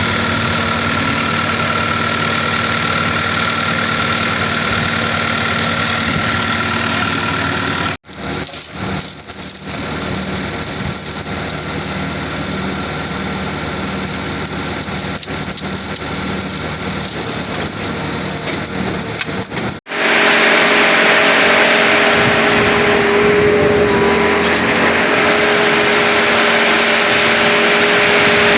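Heavy machine's engine running steadily in three separate stretches, with a change in sound at two abrupt cuts. The middle stretch carries repeated sharp metallic clanks and clicks over the engine.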